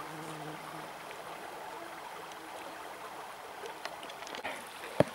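Small taiga river flowing steadily. A few faint ticks and splashes come near the end, then one sharp knock, as a person wades through the water.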